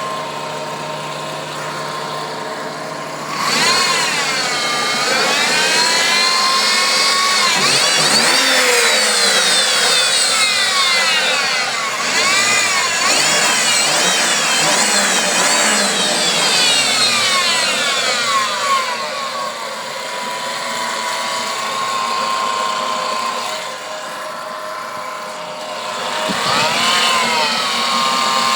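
Chevrolet Trailblazer engine idling with a steady whine, then revved repeatedly, the whine rising and falling in pitch with engine speed; the whine comes from a worn idler pulley on the accessory belt drive. It settles back to idle, then is revved once more near the end.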